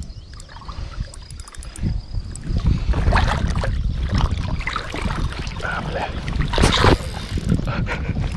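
Water splashing irregularly as a large hooked catfish thrashes in the shallows while a wading angler reaches in to grab it by hand, over wind rumbling on the microphone.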